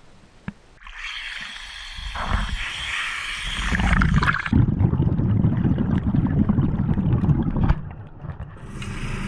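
Water splashing and sloshing at the surface as a scuba diver's head-mounted camera goes under. Then a muffled underwater rumbling and bubbling, typical of a scuba diver's exhaled air leaving the regulator, with a short hiss near the end.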